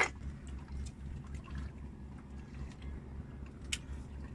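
Low, pulsing rumble of a small fishing boat on the water, with faint ticks and one sharp click near the end.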